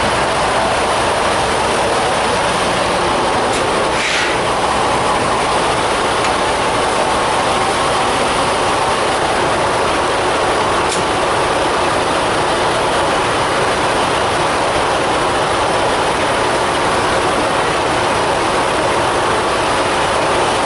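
Steady, unbroken mechanical rushing noise of a running vehicle or machine.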